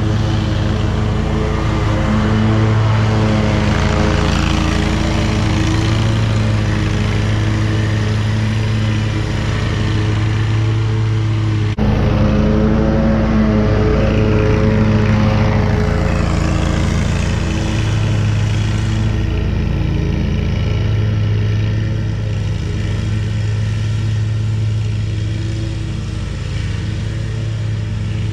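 Hustler zero-turn mower's engine running at steady mowing speed, a steady drone with a clear pitch that wavers slightly. It breaks off sharply about twelve seconds in, carries straight on, and grows a little fainter near the end.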